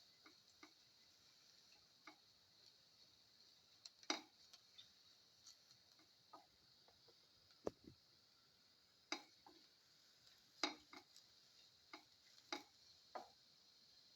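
A cooking utensil stirring in a pan of sautéing aromatics: quiet, irregular light clicks and knocks against the pan, about half a dozen sharper ones in the second half, over a faint steady hiss.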